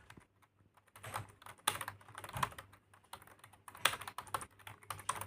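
Computer keyboard being typed on: fast, uneven runs of key clicks after a sparse first second.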